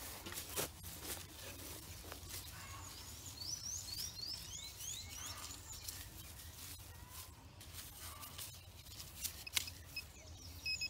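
Small hand digging tool scraping and jabbing into dry soil and grass roots: a string of faint scratches and clicks.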